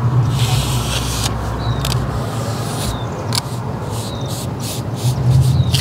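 Small trowel scraping and pressing wet lime mortar into a patch on a limestone wall, a string of irregular rough scrapes with the odd short squeak, over a steady low hum.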